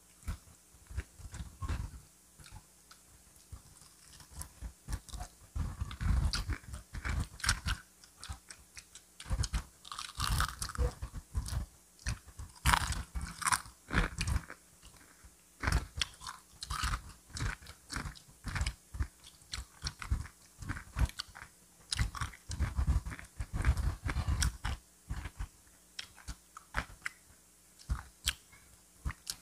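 Close-miked chewing and biting of crispy fried chicken: irregular crunchy crackles from the coating, mixed with thudding chews, busiest in the middle.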